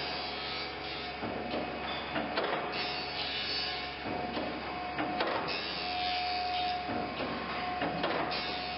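Band saw side-grinding machine running: a steady mechanical whir with irregular clicks and knocks from the feed mechanism, a whine that comes and goes, and a high grinding hiss that rises and falls several times.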